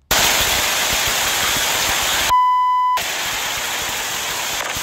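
Loud storm wind blasting over a phone microphone during a tornado, a steady noisy rush. About two seconds in, the rush is replaced for about half a second by a single steady beep tone, a censor bleep.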